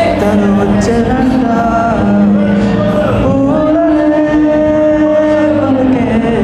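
A man singing a slow melody into a microphone over music, holding long notes that glide from one pitch to the next.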